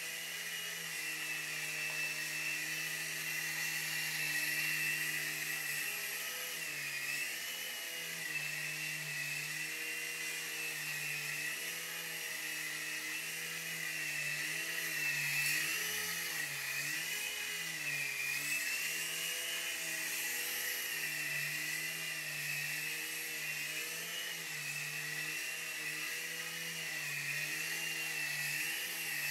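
Night Hunter mini RC helicopter in flight: its small electric motors and twin coaxial rotors give a steady high whine that rises and falls in pitch again and again.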